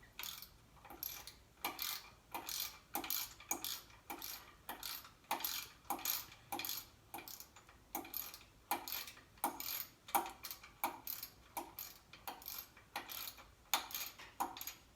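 Hand ratchet wrench clicking in quick repeated strokes, roughly two a second, as a bolt on a 2007 Chevy Equinox's EGR valve is backed out.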